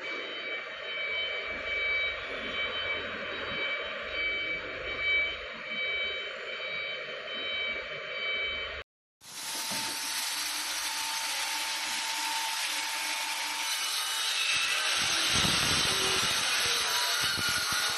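Woodworking machine for making beehive parts running, with a steady mechanical whine. About halfway through the sound cuts out for an instant, then comes back as louder, hissier cutting of wood.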